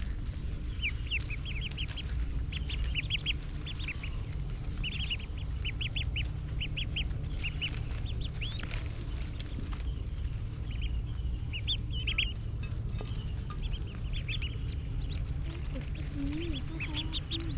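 A flock of domestic ducklings peeping: runs of short, high cheeps that come again and again, over a steady low rumble.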